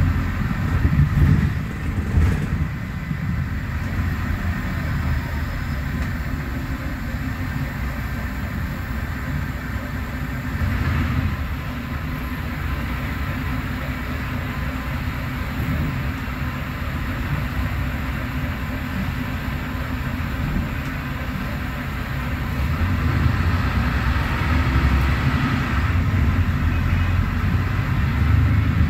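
Mercedes-Benz OM936LA six-cylinder diesel of an O500U city bus, with a Voith DIWA.6 automatic gearbox, heard from inside the cabin as the bus drives along. It is a steady low drone that grows louder over the last few seconds.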